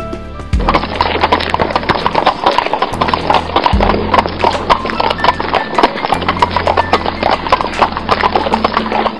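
Background music with a low bass line and a fast, clip-clop-like percussive beat.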